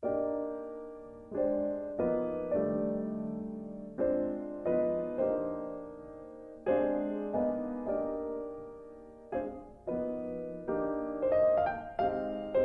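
Slow, gentle solo piano music. Chords are struck about every second or two and left to ring and fade, with quicker, higher notes coming in near the end.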